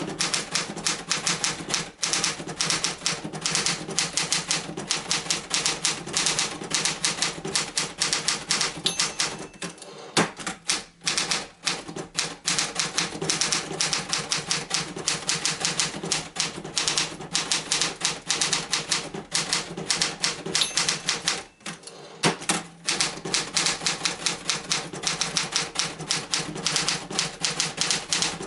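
Hermes Ambassador manual office typewriter being typed on steadily: a fast, even run of type-bar strikes, with two short breaks in the typing.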